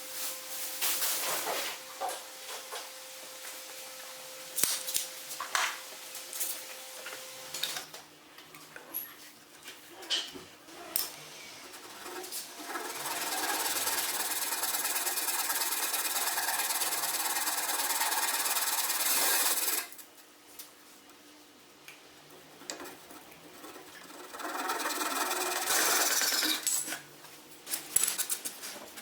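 Workshop handling knocks and clicks, then a power tool running steadily for about seven seconds before stopping abruptly, and running again briefly near the end.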